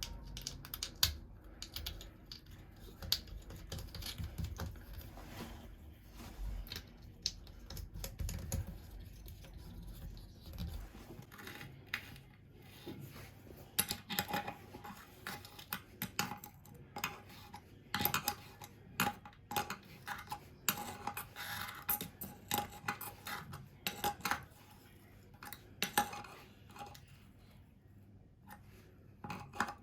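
Irregular clinks and knocks of hard metal and ceramic parts and hand tools being handled during toilet repair work. A low hum runs underneath and stops about a third of the way in.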